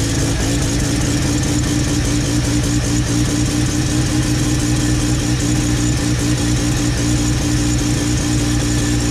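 Built street-port 13B twin-rotor engine of a single-turbo Mazda RX-7 FD running steadily, heard from inside the engine bay beside the BorgWarner turbo and its pod air filter: a steady hum over a lot of hiss.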